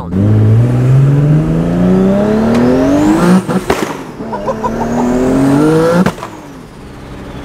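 Cast-iron 2JZ inline-six in a manual MK5 Supra under hard acceleration, heard from inside the cabin: the revs climb for about three seconds, there is a gear change with a burst of sharp exhaust pops, and the revs climb again for about two seconds. Another crack follows as the driver lifts off, and the engine note drops and quietens near the end. A faint high whistle rises with the revs in each gear.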